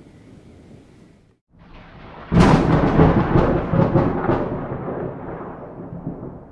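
Steady rain hiss cuts out briefly about a second in. Then a close thunderclap strikes with several sharp cracks in quick succession, and the thunder rumbles and fades away over the next few seconds.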